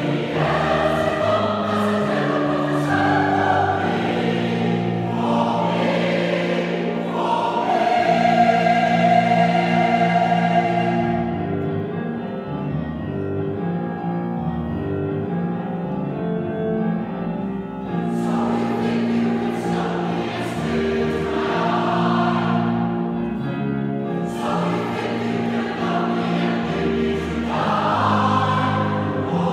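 Mixed-voice choir singing sustained chords in harmony. The sound turns softer and darker for several seconds midway, then opens out again.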